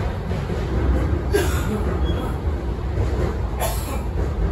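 Beijing Subway Line 1 train running, heard from inside the car: a steady low rumble of wheels on rail, with two brief sharper rail noises, one about a second and a half in and one near the end.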